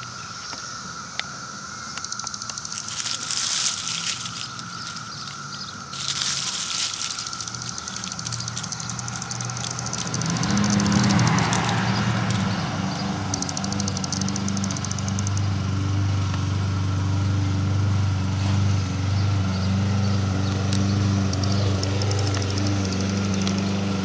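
A chorus of 17-year periodical cicadas drones steadily at one high pitch, with two short louder hissing buzzes in the first seven seconds. About ten seconds in, a deep low hum comes in and becomes the loudest sound.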